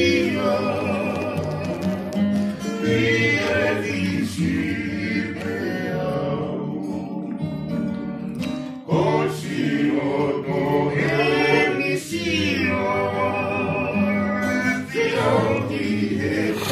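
A group singing a song together in harmony, accompanied by an acoustic guitar, with a brief break between phrases about nine seconds in.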